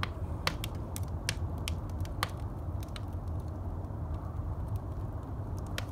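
Wood fire burning in a clay chimenea, giving off scattered sharp pops and crackles over a steady low hum.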